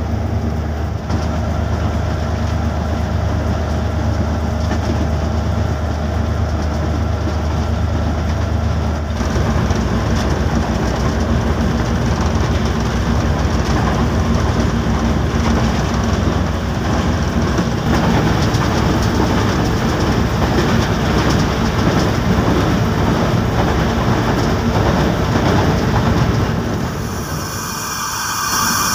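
Passenger train heard from inside the locomotive cab while running: a steady low engine drone for about the first nine seconds, then a denser rumble and clatter of wheels on track. Near the end, as the train slows, the rumble eases and a high shrill sound comes in.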